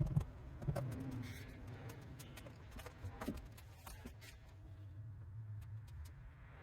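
Hand rubbing and handling noise: a cloth working scratch-repair compound over truck paint, with scattered small clicks and a low rumble.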